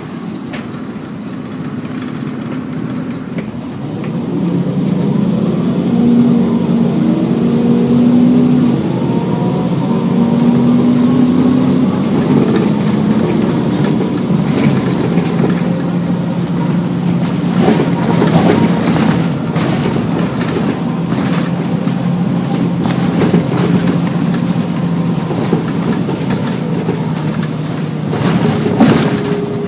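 Cummins M11 inline-six diesel of a 1999 Gillig Advantage transit bus, driving an Allison B400R automatic, heard on board. The engine builds up about four seconds in as the bus accelerates, its drone dropping in pitch twice at upshifts. It then settles into a steady cruise, with knocks and rattles from the body in the second half.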